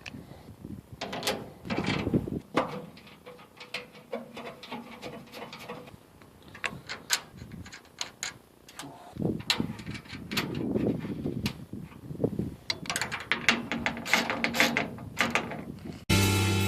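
Clicks, knocks and rattles of a Craftsman rolling tool cabinet's drawers and hardware being handled as it is assembled. Music starts abruptly near the end.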